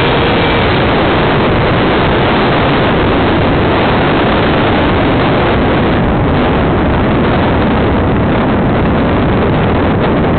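Steady, loud rush of airflow and electric ducted-fan noise picked up by the onboard camera of a Habu EDF RC jet in flight.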